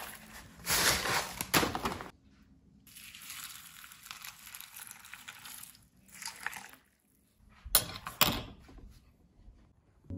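Granola clusters poured from a plastic bag into a ceramic bowl, a loud rattling rustle, then milk poured over the cereal with a steady splashing hiss. Two sharp knocks about half a second apart follow.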